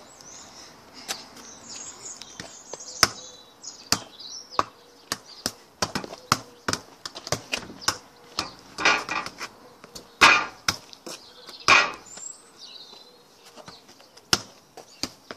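Football kicked repeatedly against a wall, a string of sharp thuds from kicks and rebounds about one to two a second, with three longer, louder hits in the middle.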